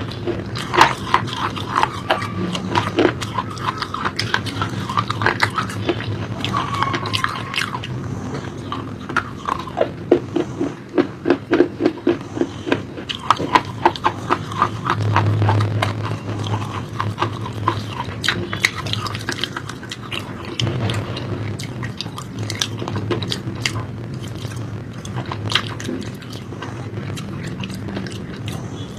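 Close-miked eating of crunchy food: rapid crackling bites and chewing in uneven runs, with wet mouth and swallowing sounds between them.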